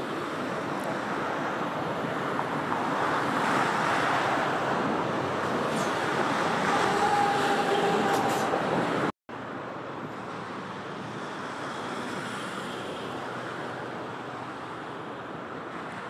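Steady rush of turbulent, foaming river water. It cuts off for an instant about nine seconds in and continues quieter.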